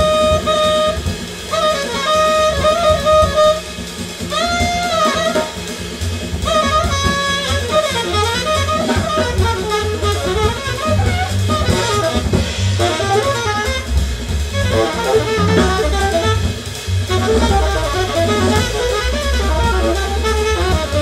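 Recorded jazz played back through hi-fi speakers and picked up by a microphone in the room: a saxophone over bass and drums. The saxophone holds long notes for the first few seconds, then plays fast runs.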